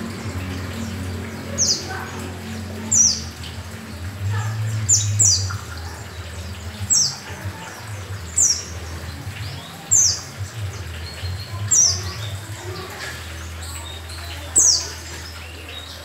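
Caged yellow-breasted white-eye (pleci dada kuning) calling persistently: short, high chirps that sweep downward, singly or in quick twos and threes, every second or two, over a low steady hum.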